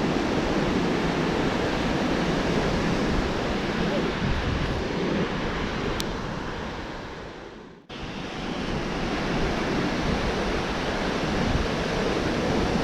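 Ocean surf breaking on the beach, a steady wash of noise mixed with wind on the microphone; it dips away briefly about eight seconds in and comes straight back.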